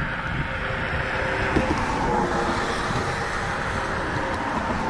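Steady rumble of road traffic passing on the bridge, with a faint engine hum in it.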